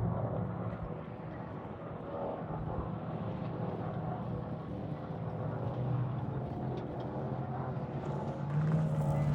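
A vehicle engine running, its speed shifting up and down, louder near the end.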